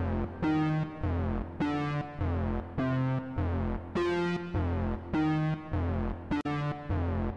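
Background music: synthesizer chords repeated on a steady pulse, a little under two a second.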